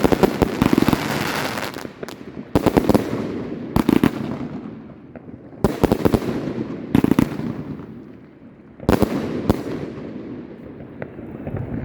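Consumer firework battery (Volt! Heisenberg) firing. A dense crackling opens, then sharp loud bangs follow in quick pairs every second or two, each echoing away.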